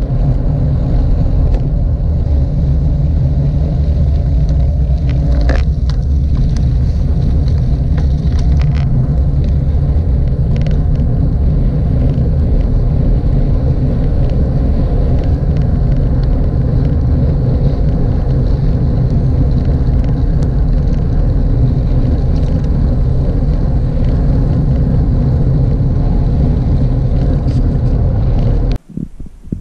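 Wind rumbling over a bike-mounted action camera's microphone while riding a road bike along a paved lane: a steady, loud, low rumble with a few faint clicks about five and eight seconds in. It cuts off suddenly near the end.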